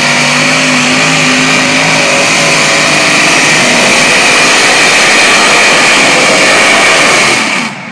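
A modified pulling vehicle's high-powered engine running flat out under load as it drags the weight sled down the track, a loud, steady roar. It drops away abruptly near the end.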